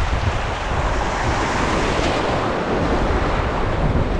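Shallow surf washing over a rocky reef flat, with wind rumbling on the microphone: a steady, even rush of noise.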